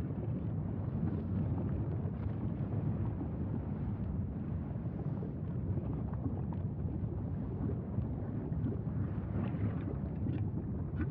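Steady low rumble of Mauna Loa's erupting fissure vent fountaining lava, with a few faint crackles near the end.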